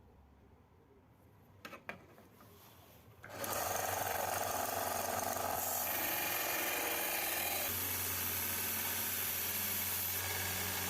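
A couple of light clicks, then about three seconds in an electric power tool switches on and runs steadily.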